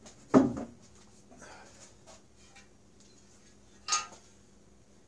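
Metal parts and tools handled on a workbench: a heavy knock about half a second in, then a sharp metallic clink with a brief ring near four seconds.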